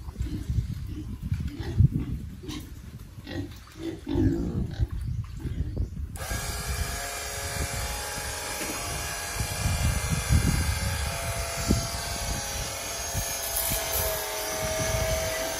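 Pigs grunting. About six seconds in, a steady rushing noise with a faint hum starts abruptly and runs under them.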